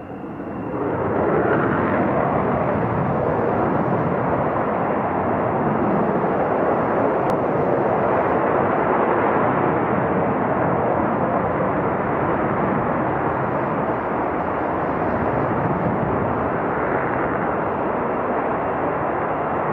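Fighter jet taking off on full afterburner. The jet noise swells up about a second in and then stays loud and steady.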